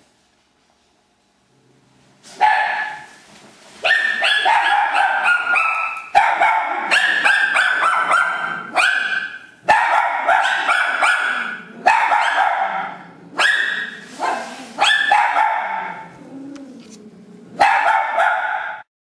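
A dog barking over and over in a long, fast run of barks that starts about two seconds in and stops abruptly near the end.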